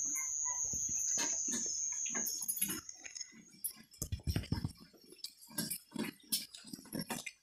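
Sheep shifting about in a wooden-slatted pen: irregular knocks, shuffles and rustles, with a louder low thump about four seconds in. A steady high-pitched tone runs under the first two seconds or so, then stops.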